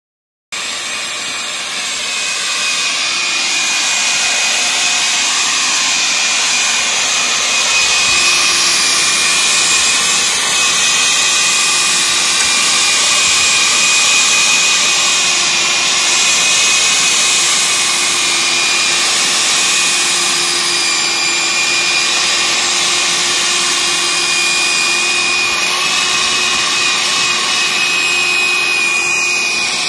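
Hecht 745 corded electric tiller running under load, its motor and worm-gear drive giving a steady high whine while the tines churn through soil. It starts about half a second in and holds steady.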